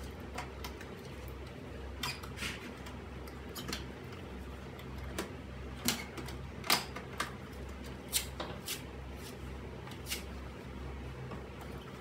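Scattered light clicks and knocks of small objects being picked up, moved and set down while dusting a TV stand and hi-fi units, over a low steady hum.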